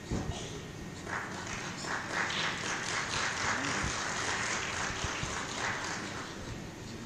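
A single thump right at the start, then a crowd applauding from about a second in, fading out near six seconds.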